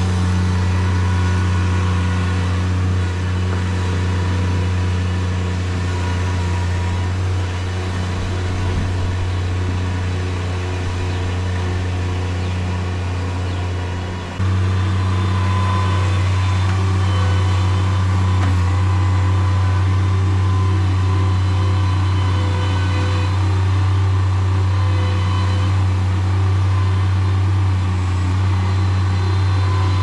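Bobcat MT100 mini skid steer's engine running with a loud, steady drone, briefly dipping about fourteen seconds in and then steady again.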